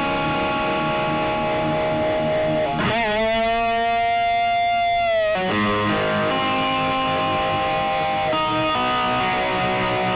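Background music: an electric guitar plays held chords that change every second or so, with one long note bent up at its start and let down again a couple of seconds later.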